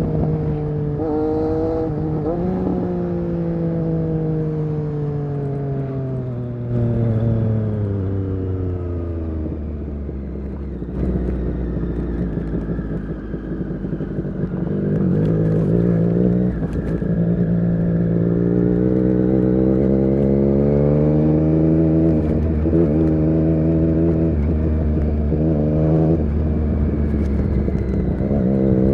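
Triumph Street Triple RS 765's three-cylinder engine breathing through an SC-Project S1 exhaust while ridden: the revs fall steadily for about ten seconds, stay low for a few seconds, then climb again about halfway through and hold at a steady higher pitch.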